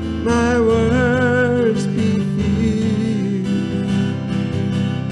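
Worship song: a voice holds a long wavering note over strummed acoustic guitar chords.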